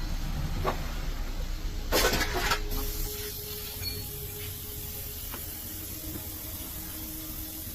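A loud hissing burst about two seconds in, lasting under a second, over a low rumble that stops about a second later; after it a steady high hiss goes on.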